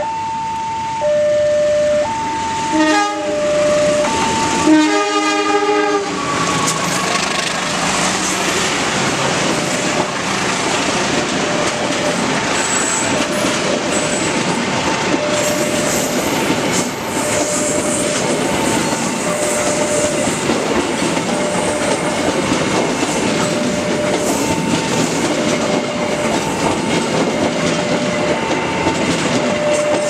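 Level-crossing warning siren alternating between a high and a low tone about once a second, with a passenger train's horn sounding twice in the first six seconds. The train then passes close by, its wheels clattering over the rails, while the siren keeps going underneath.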